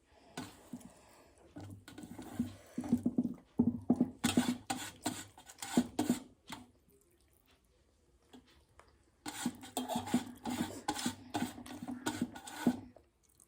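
Wet squelching and clicking of rice being mixed with fish curry by hand on a plate, in two bursts of several seconds each with a pause between.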